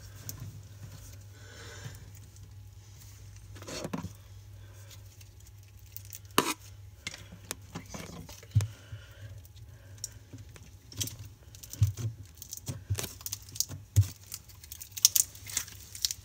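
Slime or squishy toys being pressed and worked by hand, giving scattered sharp clicks and pops. The pops come faster and louder in the second half.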